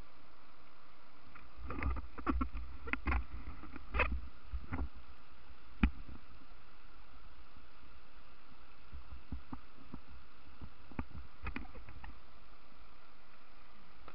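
Whitewater rushing steadily over the rocky falls, heard from a kayak. Sharp knocks and thumps come in a cluster during the first six seconds and a few more around eleven to twelve seconds in.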